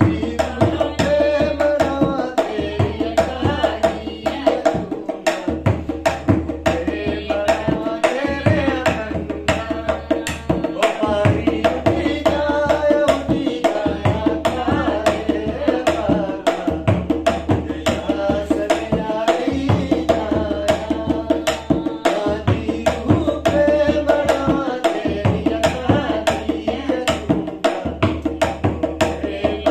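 A Himachali Chait-month folk song: a voice singing a wavering melody over a drum beaten in a quick, steady rhythm.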